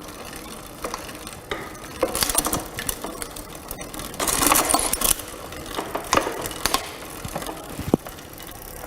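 Mountain bike drivetrain cranked by hand on a repair stand: the chain runs over the sprockets with irregular clicking and rattling as the front gears are shifted up and back down.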